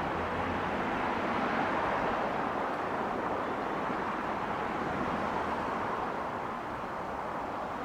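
Steady road traffic noise: vehicles driving past on the street, a little louder about a second or two in and easing slightly near the end.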